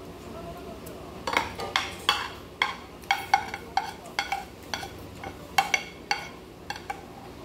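Metal cutlery clinking and scraping against a plate as fried rice is scooped up: a run of about twenty irregular light clinks, each with a brief ring, starting about a second in.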